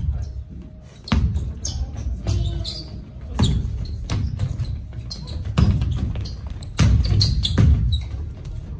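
Basketball bouncing on an indoor court floor at irregular intervals, each bounce a sharp thud with some echo, with short sneaker squeaks between them.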